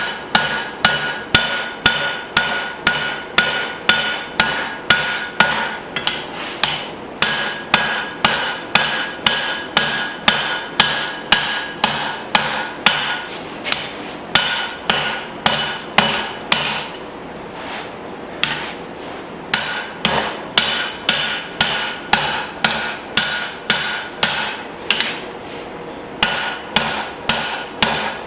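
Rounding hammer striking hot spring steel on an anvil, about two blows a second in runs with short pauses, the anvil ringing under many strikes: hand-forging the head of a hammer hatchet.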